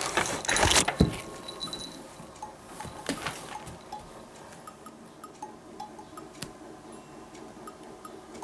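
A cat pawing and scuffling at a rope toy on tatami, with light metallic clinking of its collar, loudest in the first second, then faint scattered clinks and ticks.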